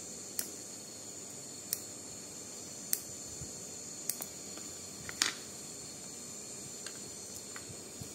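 Small metal dissecting scissors snipping through frog skin around the ankle in a circular cut: about five sharp clicks roughly a second apart, then a few fainter clicks, over a steady high-pitched hiss.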